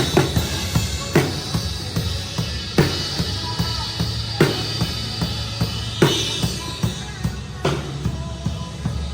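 Band music with a drum kit keeping a steady beat: kick drum and snare hits under sustained chords.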